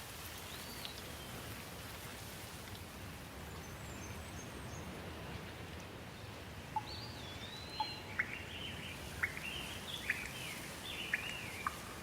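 Steady rain with birds calling over it: one sliding call near the start, then from about seven seconds in a run of quick chirps and sharp, short notes.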